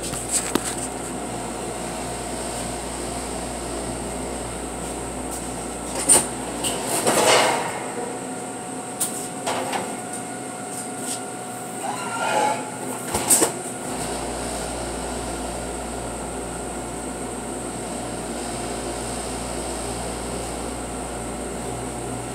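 Steady drone of a commercial bakery rack oven and its exhaust hood, broken by metal clanks and knocks as the tall steel oven door is opened and the pan is loaded. The deep part of the hum stops for several seconds in the middle, while the door stands open.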